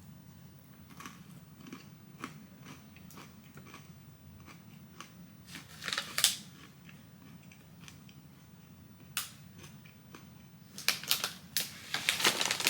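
Chewing and crunching a coated pretzel star that is a little stale, with clusters of quick crunches about six seconds in and again near the end.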